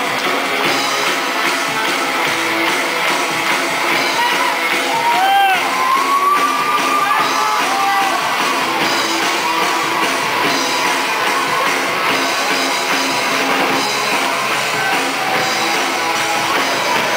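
Live rock band playing a worship song, with electric guitars and a drum kit, loud and steady, and voices singing and shouting over it.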